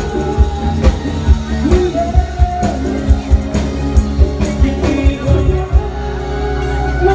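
Live band playing a pop-rock song: male lead vocal over acoustic guitar, bass, keyboard and hand drums (congas and djembe) keeping a steady beat. Near the end the drum hits drop out and the band holds sustained notes.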